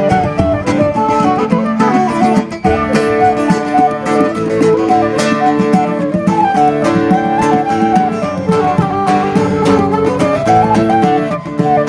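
A live folk tune: a side-blown flute plays a running melody over strummed acoustic guitar and steady held chords.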